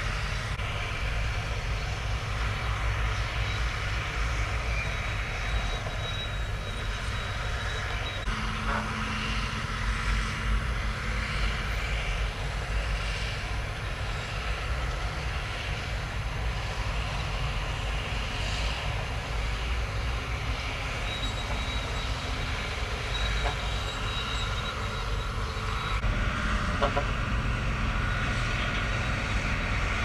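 Heavy diesel earthmoving machinery, dump trucks and Komatsu crawler bulldozers, running with a steady low rumble. The sound shifts abruptly about a quarter of the way in and again near the end.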